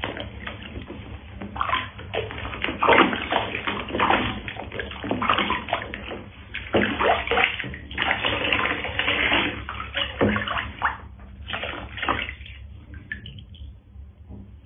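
Water splashing and sloshing in a small plastic tub as a cat is washed by hand, with water poured over it from a plastic scoop. Irregular bursts, loudest about three seconds in and again around eight to ten seconds in, quieter near the end.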